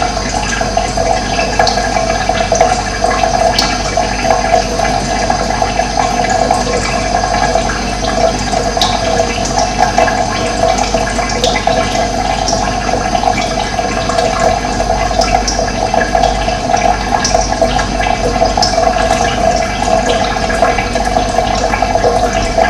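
Running water flowing steadily in an even, unbroken rush, with occasional brief high bird chirps over it.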